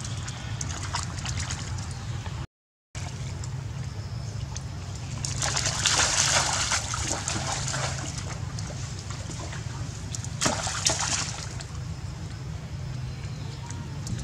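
Water sloshing and splashing as young macaques wade and play in a shallow muddy puddle, with louder splashes about five to seven seconds in and again around ten seconds in.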